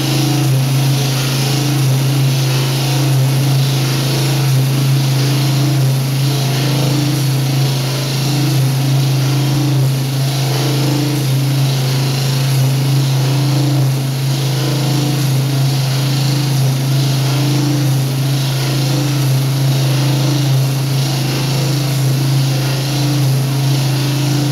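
Kalamazoo K26E 26-inch enclosed wet abrasive saw cutting metal: a loud, steady motor hum under a coolant-sprayed grinding hiss that swells and fades about once a second.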